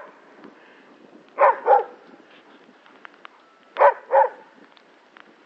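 Alaskan malamute barking: two quick double barks, one pair about a second and a half in and another near four seconds.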